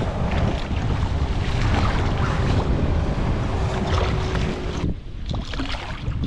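Wind buffeting the microphone over water splashing as a hooked striped bass thrashes at the surface beside the boat.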